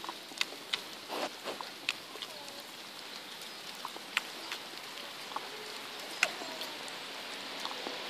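Sheep eating from a black plastic feed tub: irregular clicks and crunches of chewing and of muzzles knocking and nibbling in the tub, a few of them louder, one sharpest about six seconds in.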